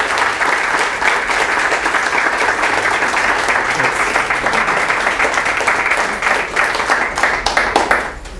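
Audience applauding, a dense, steady clapping that thins out and stops near the end.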